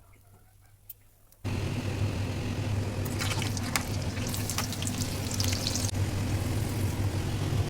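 Cooking in a pan: a steady hiss over a low hum with scattered clicks, starting abruptly about a second and a half in after a quiet moment.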